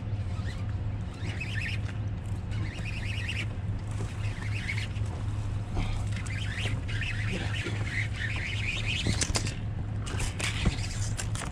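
Fishing reel whirring and clicking in repeated bursts while a hooked striped bass is fought on a bent rod, with a few sharper clicks near the end.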